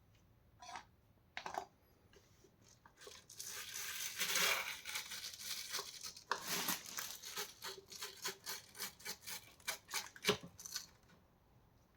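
Tearing and rasping as the debris-clogged brush bar of a Vax Mach Air upright vacuum is worked loose and pulled out of its housing by hand. A long rasp about three seconds in is followed by a quick run of scraping strokes and a knock near the end.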